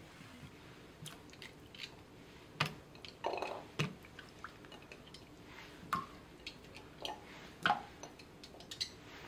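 A whole raw chicken handled and pressed down by hand in a stainless steel pressure cooker pot of broth: soft wet squishes with scattered light clicks and knocks, the loudest a few seconds in and again near the end.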